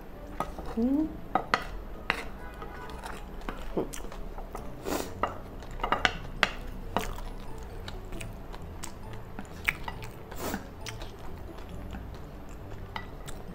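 Wooden spoon stirring fried rice in a glass bowl, with irregular clicks and knocks as the spoon scrapes and taps against the glass.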